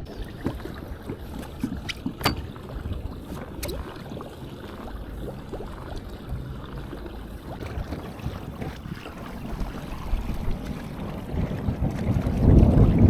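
Water and wind noise around a kayak on the water, with a few sharp clicks in the first few seconds and a swell of louder low rumbling near the end.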